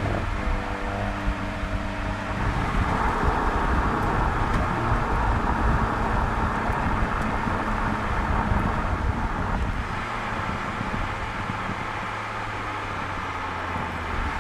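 Audi S3 sedan's turbocharged 2.0 TFSI four-cylinder engine and exhaust as the car drives along a road, with tyre and wind noise. A steady engine note for the first two seconds gives way to mostly road and wind noise, with a low engine hum again in the last few seconds.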